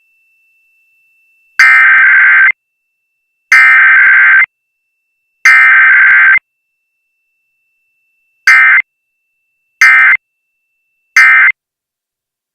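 Emergency Alert System test: the buzzy digital data bursts of the SAME header, sent three times about two seconds apart, then three short end-of-message bursts. No attention tone comes between them.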